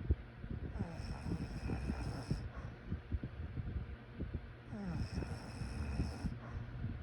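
A sleeping person snoring: two breaths about four seconds apart, each with a hiss lasting about a second and a half, over a low flutter.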